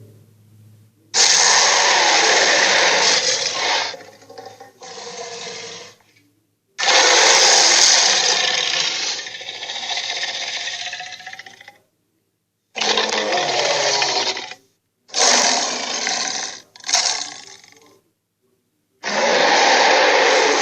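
Red Claw's monster screech sound effect, played over and over: about seven harsh, raspy cries of one to five seconds each, every one starting and cutting off abruptly.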